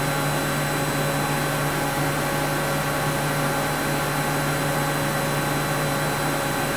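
Steady hum and whir of a powered-up Mazak CNC lathe standing at idle, with a few thin steady tones over it; no cutting, since only the tool path is being simulated on the control.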